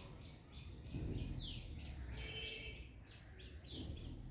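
Small birds chirping, many short high chirps a second, some sweeping quickly down in pitch, over a low background rumble.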